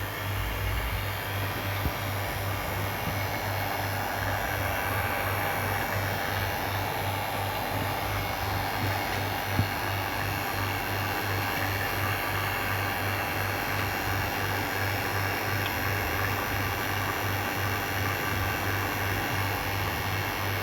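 A machine running steadily: an even hiss with a low hum that pulses a few times a second.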